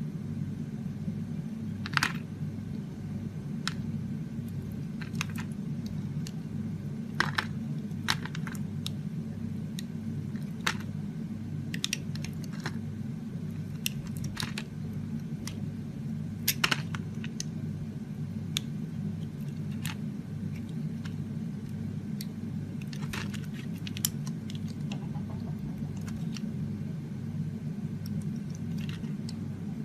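Knife cutting into dry soap, giving irregular sharp, crunchy clicks about every second or so over a steady low hum.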